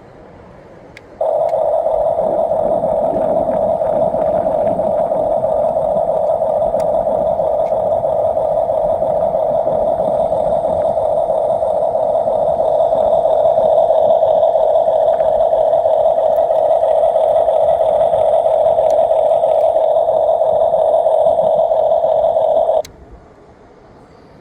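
1/16-scale RC bulldozer running, a steady electric-toy drone with a narrow, speaker-like tone. It switches on about a second in, holds unchanged for about twenty seconds, then cuts off suddenly.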